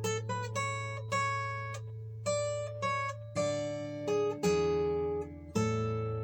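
Yamaha steel-string acoustic guitar played fingerstyle: picked single notes and small chords over a low bass note left ringing, in a loose improvised line.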